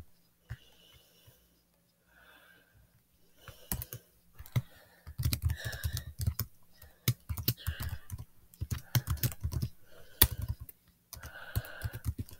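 Typing on a computer keyboard: a quiet start, then from about three and a half seconds in, a run of quick key clicks.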